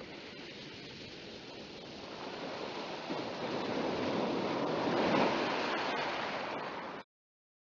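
Rushing, surf-like noise of waves that builds to its loudest about five seconds in, then cuts off abruptly.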